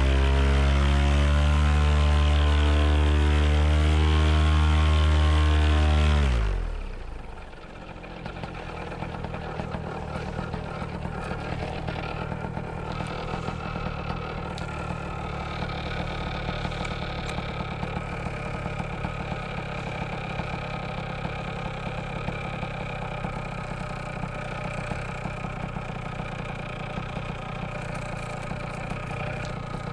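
Paramotor engine and propeller running loud and steady at high throttle, then throttled back with a falling pitch about six seconds in, settling into a steady idle.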